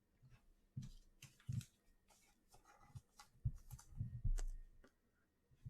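Trading cards being handled: faint, scattered clicks, taps and rustles, busiest a little past halfway.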